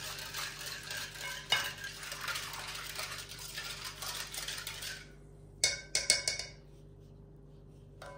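Metal spiral whisk stirring milk, sugar and yeast in a glass bowl: a steady scratchy swishing with small clicks of the wire against the glass for about five seconds. It then stops, and a few sharp clinks of the whisk against the bowl follow around six seconds in.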